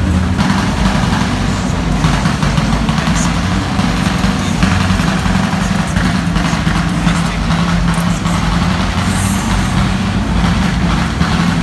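A car engine idling steadily with an even low hum.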